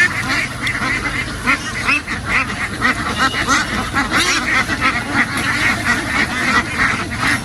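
A large flock of domestic ducks quacking, many calls overlapping in a continuous din.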